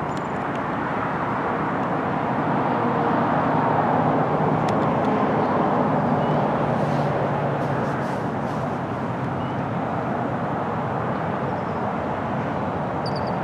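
Steady rush of a creek's running water, with a low hum that swells louder and fades again midway, and a few faint bird chirps.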